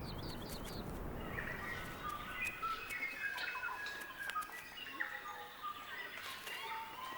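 Birds calling: a quick run of four short falling notes at the start, then a tangle of overlapping short whistled notes, with a few sharp clicks.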